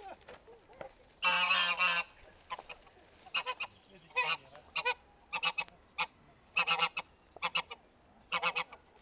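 Domestic goose honking: one long honk about a second in, then a run of short honks, mostly in quick pairs and threes.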